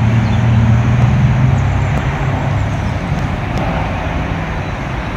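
Road traffic noise: a motor vehicle engine hums steadily over a wash of tyre and road noise.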